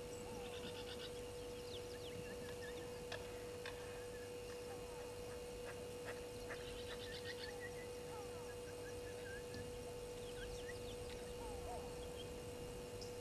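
Faint wild bird calls: many short chirps and whistled glides, with two quick pulsed trills, one near the start and one about halfway through, over a steady low hum.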